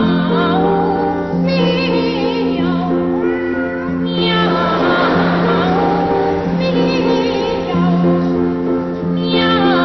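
Boy trebles singing a classical piece with strong vibrato, in phrases of about two seconds broken by short pauses, over sustained low accompaniment chords.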